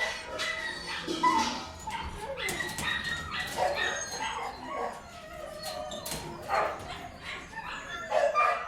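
Several dogs barking at once with overlapping barks, some yips and whines among them, with no pause.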